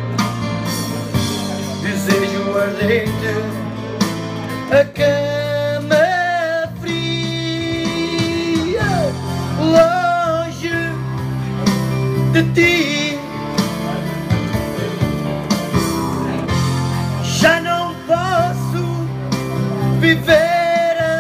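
A man singing a slow song with vibrato over instrumental backing music.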